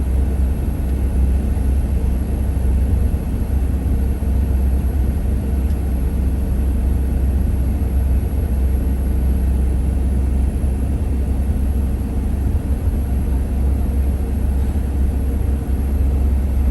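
Steady low rumble of a road vehicle driving, engine and road noise running evenly with no changes.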